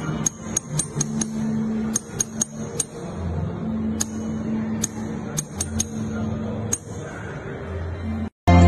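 Light metallic tapping of a small hammer on a punch against an engraved brass vessel, hammering metal inlay into the design: about fifteen sharp, ringing taps in irregular clusters over a low steady hum. Near the end the sound cuts out briefly.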